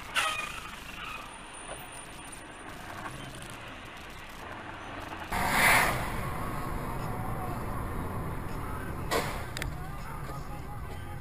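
Vehicle and road rumble as picked up by a dashcam. There is a sharp bang right at the start, a loud hissing burst lasting about half a second a little past the middle, and another sharp knock near the end.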